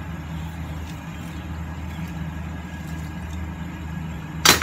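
A steady low hum of a running appliance or fan. Near the end comes one brief loud rustle as the thin bag is handled.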